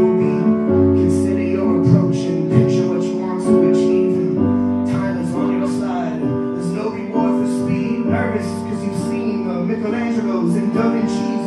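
Live band music: held keyboard chords over deep bass notes that change every few seconds, with a ticking high percussion beat.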